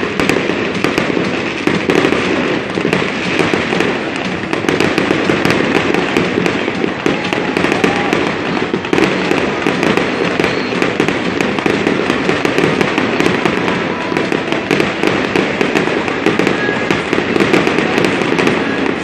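Fireworks display with aerial shells bursting over tall sparking fountains: a dense, continuous stream of rapid pops and crackles with no let-up.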